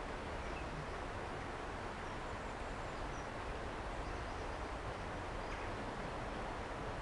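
Steady outdoor background noise: an even hiss with a low rumble, with a few faint, short, high bird chirps.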